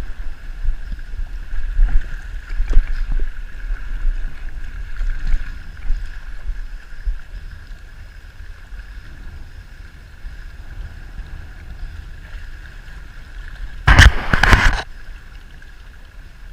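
Wind buffeting the microphone beside water, under a steady high hum. About fourteen seconds in there is one loud, brief rush of noise lasting under a second.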